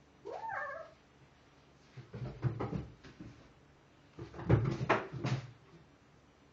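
A black kitten gives one short meow that rises and falls, then its paws thump and scrabble against the sides of an empty bathtub in two bouts of knocks, the louder bout in the second half.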